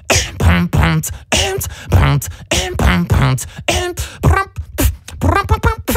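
Beatboxing into a studio microphone: a fast run of vocal drum sounds, deep bass kicks and sharp snare- and hi-hat-like hits. Held pitched vocal tones join in between the hits over the last couple of seconds.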